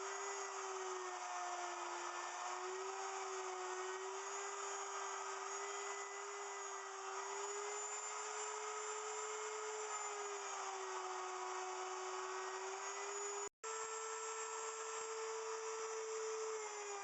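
Router on a router milling machine running and cutting into a block of cedar, routing out the inside of a box; its steady whine dips and rises a little in pitch as the bit takes load. The sound drops out for an instant about three-quarters of the way through.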